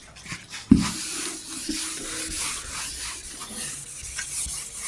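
A whiteboard duster rubbing across a whiteboard, wiping off marker writing in repeated strokes, with a single knock shortly before the rubbing begins.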